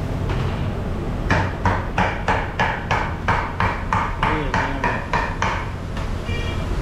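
A baker's hand tool striking naan dough on a steel worktable: a quick, even run of about fourteen ringing metallic taps, some three a second, starting about a second in and stopping near the end. Under it is a steady low hum.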